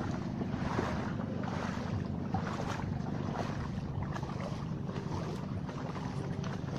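Feet wading and splashing through shallow water at an irregular pace, over a steady low rumble of wind on the microphone.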